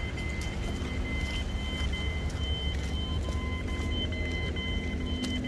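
City street traffic: a motor vehicle running close by, with a steady low rumble and a thin, steady high whine, plus scattered light clicks.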